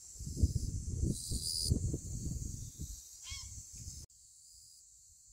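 Wind buffeting the microphone in irregular gusts that cut off abruptly about four seconds in, over a steady high-pitched hiss.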